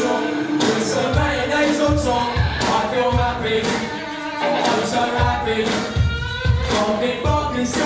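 Live rock band playing: young male voices singing into microphones over electric guitars and a drum kit with a steady kick-drum beat. The drums drop out briefly about halfway through.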